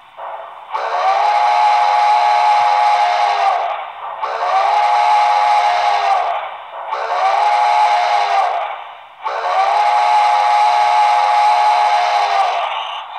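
HO scale model steam locomotive's sound decoder playing a chime steam whistle through its small onboard speaker: four long blasts, the last the longest.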